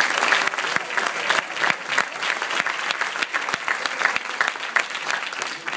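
Audience applauding: many people clapping their hands in a dense, steady round.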